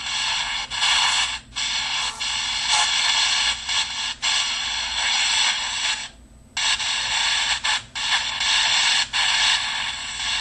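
Steady high hiss of white noise from a ghost-box app used for spirit communication, broken by brief dropouts, with a half-second gap about six seconds in.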